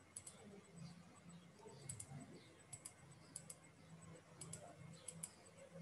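Faint computer mouse clicks, about six of them, each a quick double click, over near-silent room tone.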